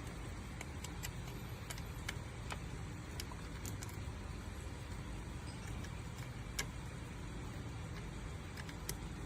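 Scattered light clicks and ticks, about a dozen, from small parts and connectors being handled during a massage chair control-board swap, over a steady low hum.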